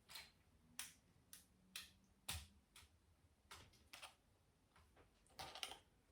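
Lego Technic plastic pieces clicking and tapping as they are handled and pressed together: about ten faint, irregular clicks, a few coming in quick succession near the end.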